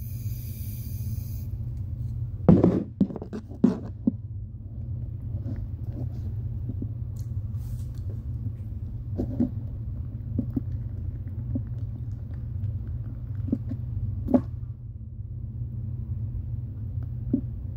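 A pen stirring fluffy slime in a bowl: scattered short taps and knocks, a cluster of them about two and a half seconds in, over a steady low rumble.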